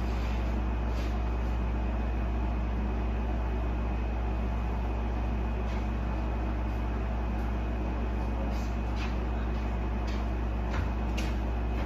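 Steady low machine hum with hiss and a thin steady whine above it, like a running fan or air conditioner, with a few faint clicks near the end.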